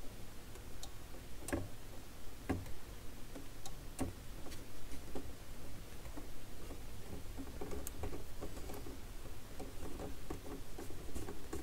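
Scattered light clicks and ticks from the tonearm counterweight of a Dual CS 607 turntable being turned by hand while the arm is balanced, the sharpest few in the first four seconds. A steady low hum sits underneath.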